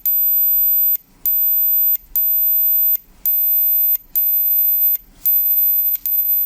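Time-code signal for setting a radio-controlled clock: a very high-pitched steady tone that cuts out briefly once every second, some gaps short and some longer, the gap lengths carrying the time data.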